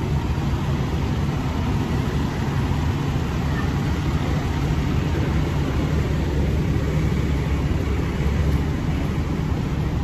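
Fire ladder truck's diesel engine idling with a steady low rumble.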